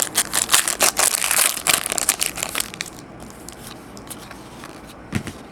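Trading cards being handled and shuffled, with a dense burst of crinkling and rustling for the first two and a half seconds or so, then softer handling noise.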